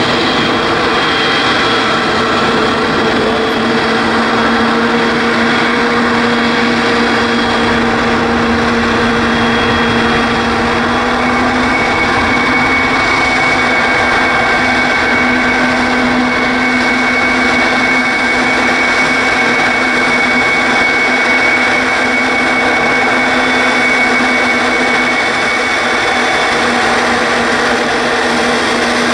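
Boeing 777's twin turbofan engines running at taxi power: a steady loud rush with a whine of several held tones, a higher tone joining about halfway through.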